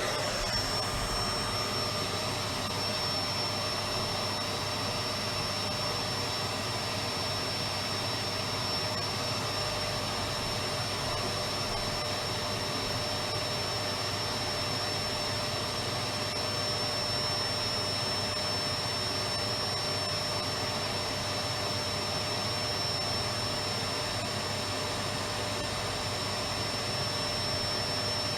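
Electric vacuum cleaner running steadily: a constant motor whine over a rush of air, unchanging throughout.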